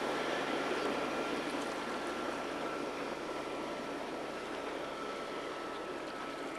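Steady rush of wake water and wind heard from aboard a motorboat under way, with the boat's engine running underneath and a faint steady high tone.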